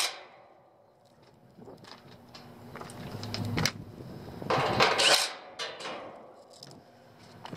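Footsteps crunching on loose gravel with clothing rustling, loudest in two stretches about three seconds and about four and a half seconds in.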